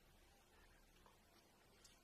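Near silence: room tone, with a couple of faint clicks.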